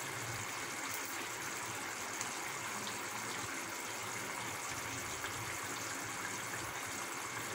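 Thick coconut-and-tomato mushroom gravy boiling in a pan, a steady bubbling hiss with faint small pops.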